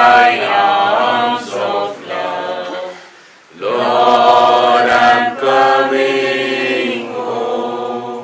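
A group of people singing a hymn together: one phrase ends about three seconds in, a short pause for breath, then the next phrase is sung and fades away near the end.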